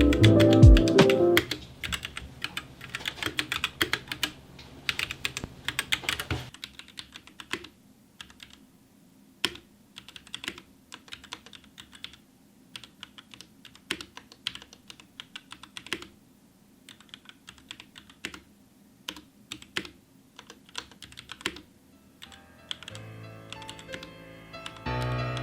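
Typing on a Royal Kludge RK84 mechanical keyboard: a fast, dense run of key clicks for about the first six seconds, then slower, scattered keystrokes. Background music comes in near the end.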